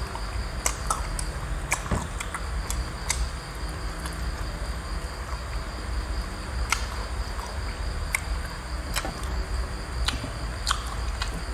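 Crickets chirring steadily at one high pitch in the background, with scattered sharp clicks and crunches as roast chicken is torn apart by hand and chewed.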